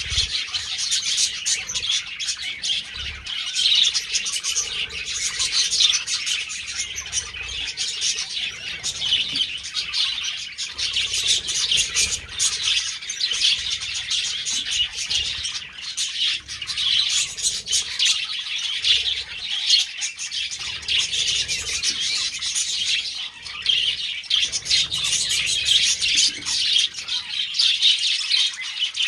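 Budgerigars chattering and chirping continuously, many quick overlapping high chirps and warbles.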